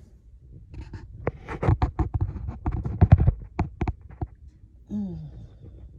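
Plastic storage tubs and their covers being handled: a quick run of knocks, clicks and scraping rustles as they are lifted and moved.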